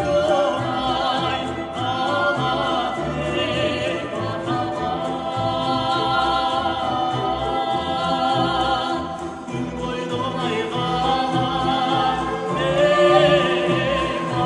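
A man and a woman singing a Kyrgyz song together, their two voices in a sustained, flowing melody, over an accompanying ensemble of folk instruments.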